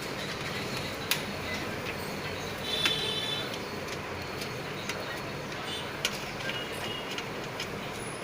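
Steady background noise with a few sharp clicks and taps, about four in all, from desktop computer parts being handled and fitted.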